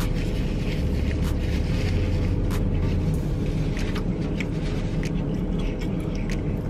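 A steady low rumble of a car idling, heard from inside the cabin, with scattered short clicks of chewing and mouth sounds over it.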